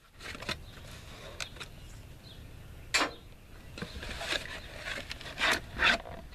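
Cardboard box and its packaging being handled as a new sealed-beam headlamp is taken out: scattered rustles and scrapes, with a sharp knock about three seconds in and louder rustling near the end.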